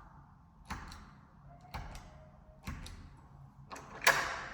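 Buttons of a push-button door code lock being pressed one at a time, a sharp click about once a second, followed near the end by a louder clack as the handle is turned and the latch releases.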